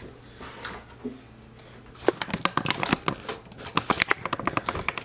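Rapid, irregular clicking and rattling of hand tools and hardware during flat-pack furniture assembly, a few scattered knocks at first, then dense clicking from about two seconds in.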